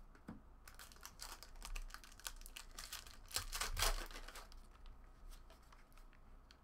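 Foil wrapper of a trading-card pack crinkling and tearing as it is opened by hand, in a dense run of crackles that is loudest about three and a half to four seconds in.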